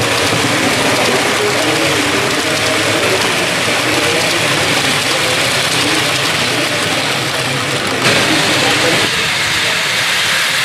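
Model electric trains running on a layout: a steady whirr and rattle of small motors and wheels on track, with a murmur of voices behind it. The sound changes abruptly about eight seconds in.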